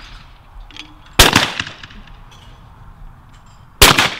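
Two shotgun shots from a Longthorne 12-bore, fired at a clay target: one about a second in and one near the end, each a sharp report that rings away briefly.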